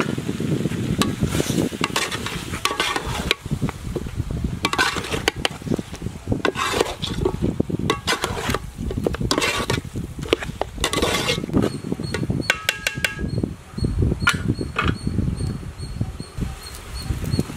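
A spoon scraping and stirring spiced chicken pieces around a large aluminium pot, in repeated strokes about once a second that stop about twelve seconds in. A few light clicks follow near the end, over a steady low rumble.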